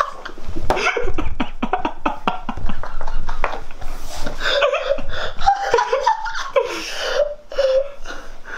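A young man laughing hard in repeated bursts, with a few dull thumps in the first few seconds.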